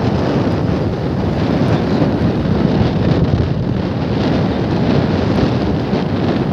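Steady wind buffeting the microphone, a dense rumbling noise with no distinct events.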